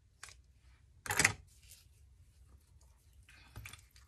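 Craft materials being handled on a work table: a few brief rustles and clicks, the loudest about a second in.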